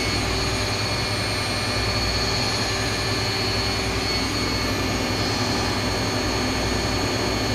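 Nakamura AS200LMYS CNC lathe running a cycle with flood coolant on: a steady hiss of coolant spraying against the enclosure window over the machine's running noise, with a steady high whine.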